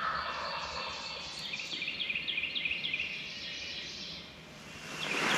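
Songbirds singing in the woods, a quick run of short repeated chirps, over a rushing noise that starts suddenly and fades away; the rushing swells again near the end.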